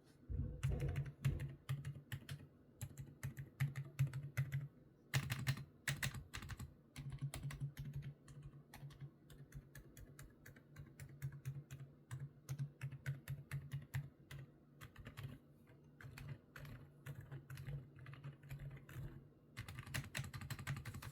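Typing on a mechanical keyboard fitted with Outemu Banana Green switches: rapid, irregular key clicks in runs with brief pauses.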